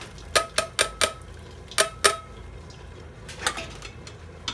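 A metal kitchen utensil clinking against a pot or dish: four quick ringing clinks, then two more, then a couple of softer knocks near the end.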